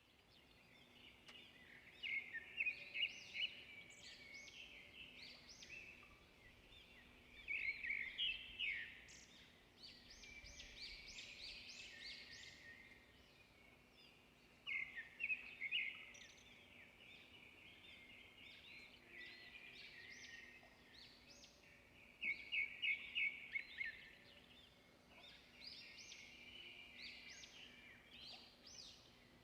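Birds chirping in the background, in bursts of rapid high-pitched notes every few seconds, over a faint steady hum.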